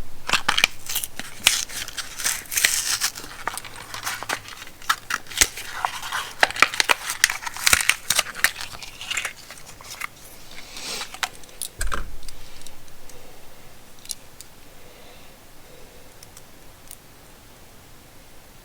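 Packaging being crinkled and torn open by hand, dense rustling and clicks for about ten seconds, then a single thump and a few faint clicks.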